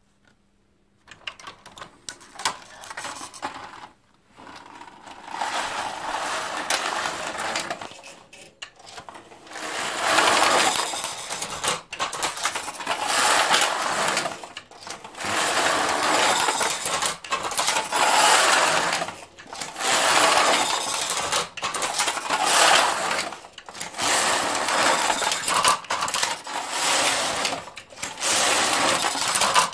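Passap Duomatic 80 knitting machine being worked, its lock carriage sliding across the double needle bed with a rattling clatter of needles on each pass. The first passes are quieter and uneven. From about ten seconds in it settles into a steady back-and-forth rhythm of roughly one pass every two seconds, with a short pause at each end.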